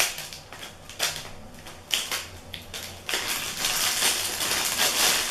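Plastic wrapper of a chocolate lollipop crinkling as it is unwrapped: a few sharp crackles about a second apart, then dense, continuous crinkling from about three seconds in.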